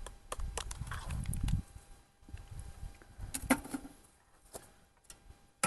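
Rustling and small clicks of a paper instant-coffee-mix stick being handled and emptied into a cup, over a low rumble in the first second and a half. At the very end there is a single sharp metallic clink with a brief ring.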